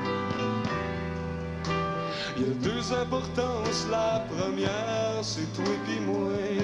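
Live folk band playing an instrumental passage: acoustic guitars over sustained bass notes, with a wavering melody line above them.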